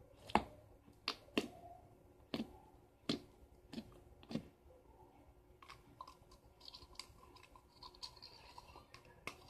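Slime being picked at and pinched by fingers, giving a run of sharp clicks in the first four and a half seconds, then fainter scattered clicks.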